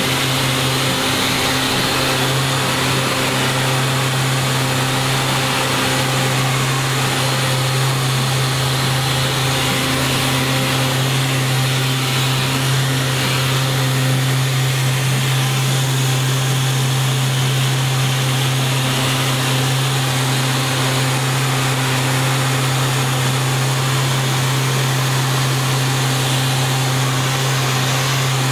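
Dual-action sander with fine abrasive running steadily against the varnished cabin side, a constant hum with a hiss over it, matting off the old varnish to key the next coat.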